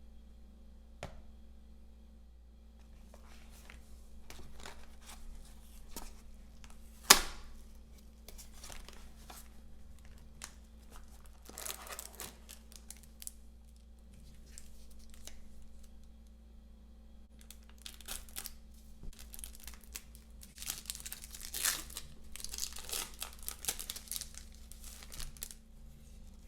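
Plastic shrink wrap being torn and peeled off a boxed trading-card collection, crinkling in bursts, with one sharp snap about seven seconds in.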